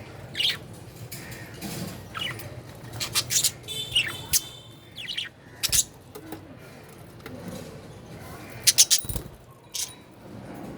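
Budgerigar chirping in short, scattered calls, with a quick run of sharp chirps about nine seconds in.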